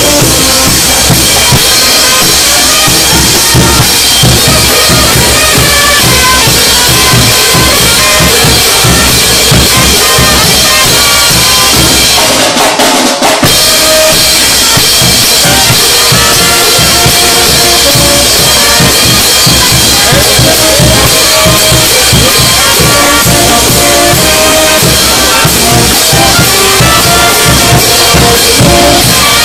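Bolivian brass band playing caporales music very loudly: sustained brass melody over bass drum, snare and cymbals in a steady beat. The sound dips for about a second about halfway through.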